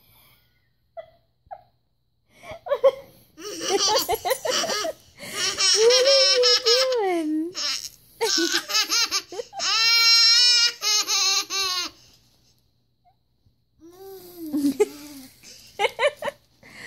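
Baby laughing in repeated bursts of high, bending giggles, starting a couple of seconds in, with a short quiet gap about two-thirds through before softer laughs near the end.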